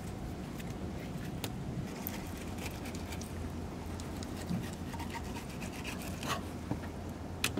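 Fillet knife scraping and sawing through a mangrove snapper fillet against a plastic cutting board, the blade working between flesh and skin. A steady low hum runs underneath, with a few light clicks and knocks.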